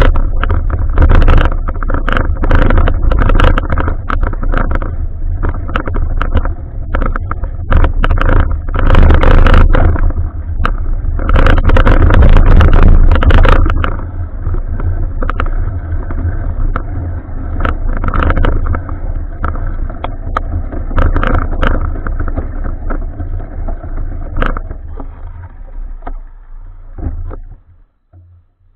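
Muffled riding noise of a bicycle picked up by an action camera: a heavy, steady rumble of wind and road with frequent knocks and rattles, fading away near the end.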